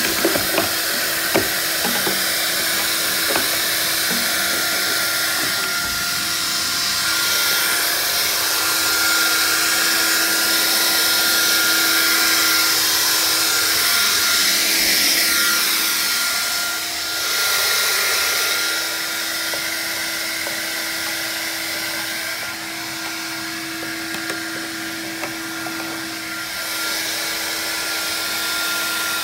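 Vax Air Cordless battery-powered vacuum cleaner running steadily as it vacuums, a motor hum with a high steady whine over a rush of air. It is switched off at the end.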